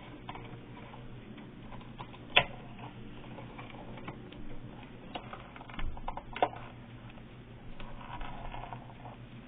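Loose push-in (backstab) wire connection at the back of a wall outlet arcing: sporadic sharp snaps and faint crackling. The sharpest snap comes about two and a half seconds in, with more around six seconds in. The arcing is the sign of a wire not making proper contact in its hole, which cuts power to the downstream outlets.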